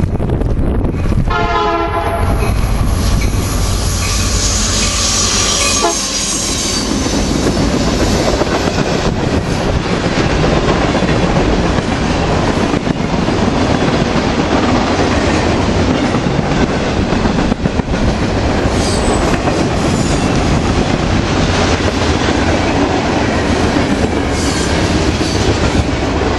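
Freight train passing close by: a brief locomotive horn sounds about a second in as it approaches, then a steady loud rumble of boxcars with the clickety-clack of wheels over rail joints.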